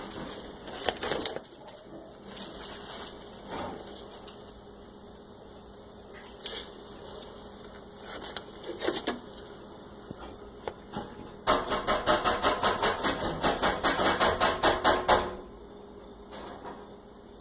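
A turtle pushing through a plastic pet-door flap, its shell and claws scraping against the flap and frame. Scattered clicks and scrapes come first, then near the end several seconds of rapid, loud scratching and rattling at several strokes a second, which stops suddenly.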